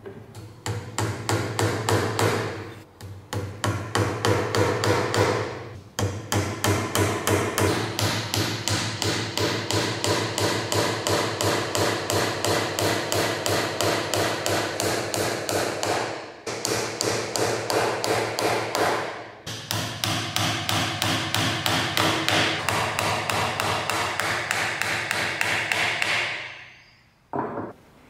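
Hand hacksaw cutting metal in quick, even back-and-forth strokes, a few each second, with several brief pauses; it stops shortly before the end.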